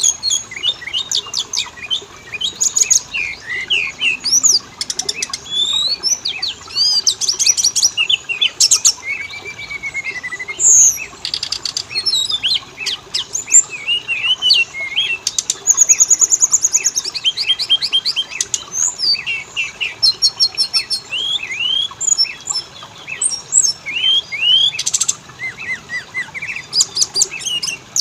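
Oriental magpie-robin (kacer) singing a long, varied song: a dense, unbroken stream of clear whistles, rising and falling slurs, quick trills and fast rattling note-runs.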